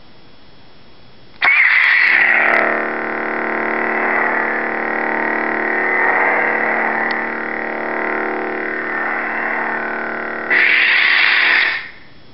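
Lightsaber sound board (Plecter Crystal Shard 2.5 in a Vader's Vault Havoc hilt) playing its ignition sound about a second and a half in, then a steady electric hum of several fixed tones, then its retraction sound near the end.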